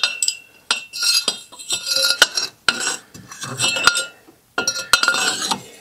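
A ratchet with a steel cheater pipe over its handle clinking and clanking against the caliper bracket as it is fitted onto a tight 18 mm caliper bracket bolt to break it loose. A run of sharp metallic knocks, several of them ringing briefly.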